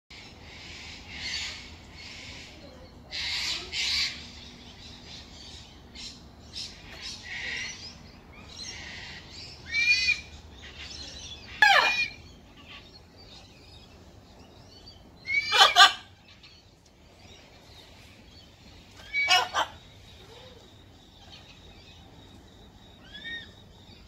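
Parrots and cockatoos calling: a run of harsh, raspy screeches for the first eight seconds or so, then four loud pitched squawks spaced a few seconds apart, and a faint one near the end.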